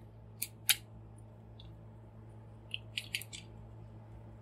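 Hard plastic parts of a transforming robot figure clicking as a wing section is folded by hand: two sharp clicks about half a second in, then a quick run of small clicks around three seconds in.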